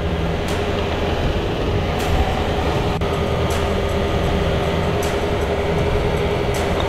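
Steady mechanical drone with a low rumble and a constant hum, like a machine running without change.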